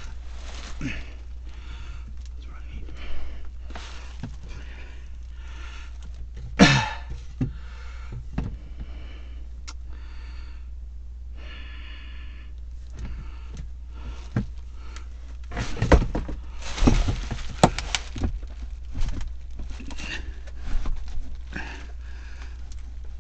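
Handling noise from working on a PVC drain pipe and its rubber coupling: scattered knocks and scrapes, the sharpest about six and a half seconds in and a cluster of them around sixteen to seventeen seconds. A person's breathing is heard over a steady low hum.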